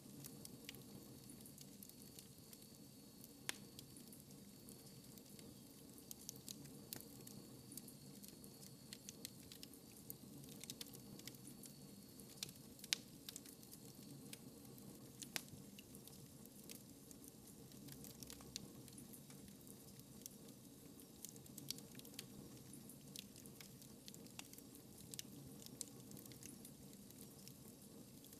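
Wood fire crackling in a fireplace: irregular sharp pops and snaps, some louder than others, over a soft steady hiss of burning.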